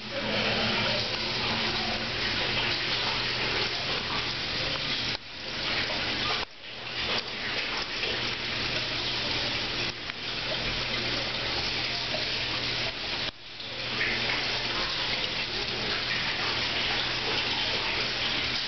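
Water rushing steadily from an American Standard Madera toilet's flushometer valve into the bowl and swirling down the drain, with a few brief dips. The flushometer is broken and stuck open, so the flush keeps running for about two minutes instead of shutting off.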